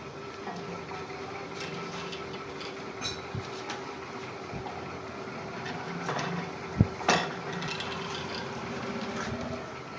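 Metal clinks and knocks of tools and parts being handled, over a steady machine hum; two sharp knocks close together about seven seconds in are the loudest.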